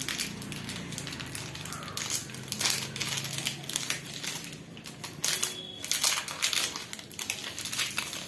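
Crinkling and rustling of a Cadbury Dairy Milk Silk chocolate bar's plastic wrapper as it is pulled open by hand, with irregular crackles throughout.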